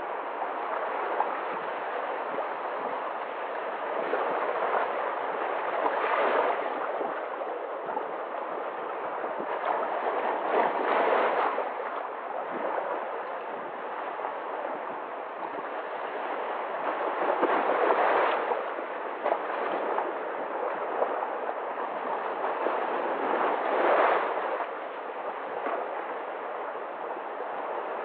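Sea waves washing in among shoreline rocks and gurgling through the gaps: a steady wash that swells louder four times as bigger surges come in.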